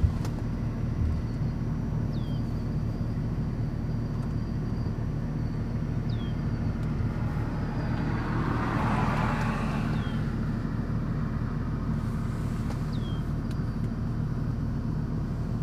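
A car drives past, its tyre and engine noise swelling and fading about halfway through, over a steady low rumble. Short high falling chirps come every few seconds.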